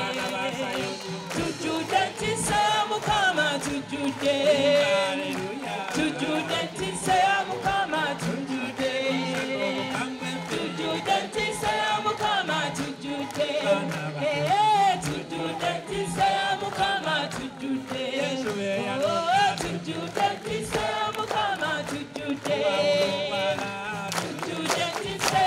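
A choir and congregation singing a gospel song together, led by a man's voice over a microphone, with rhythmic hand clapping.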